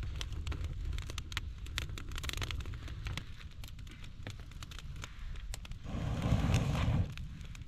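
Campfire of dry grass tinder catching, crackling with many small sharp snaps. About six seconds in, a breathy rush lasting a little over a second as the fire is blown on.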